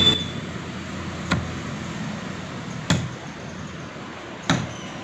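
Pickaxe digging at the soil around a tree stump: four dull strikes about a second and a half apart.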